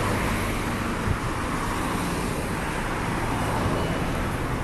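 Steady road traffic noise from cars passing on a street, a continuous rush with a low engine hum beneath it.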